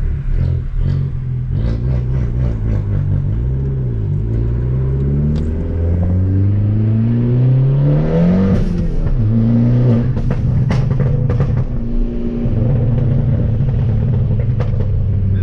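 Fiat Abarth 500's engine pulling under acceleration, its pitch rising for about four seconds, then dropping at a gear change and running on steadily.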